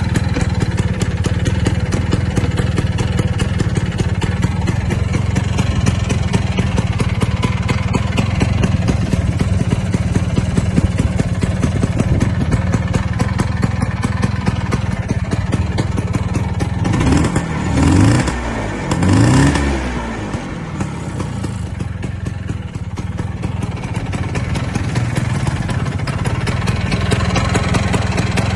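Vespa PK125's two-stroke single-cylinder engine idling steadily, blipped twice in quick succession about two-thirds of the way through, the pitch rising and falling back each time before it settles to idle again.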